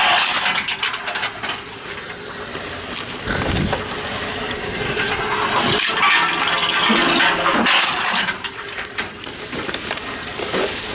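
Tomra 42 reverse vending machine for cans running, with a steady motor hum under rattling and several sharp metallic clanks as cans move through its mechanism.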